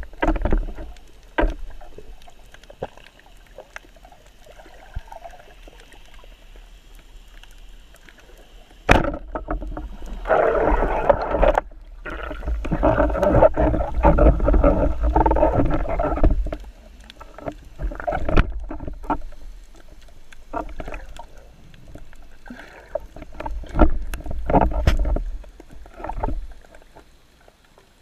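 Underwater sound through a diving camera's housing: water rushing and gurgling with scattered sharp clicks and knocks. There is a very sharp click about nine seconds in, then several seconds of loud water rushing, with shorter swells of it later.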